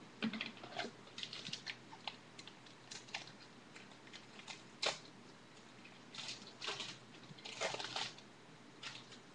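Trading cards being handled: scattered light rustles, clicks and scrapes in short clusters, with the sharpest tap about five seconds in.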